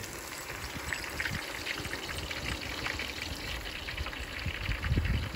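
Thin-cut onion rings frying in a pot of hot grease: a steady crackling sizzle of bubbling oil, with a low thump near the end.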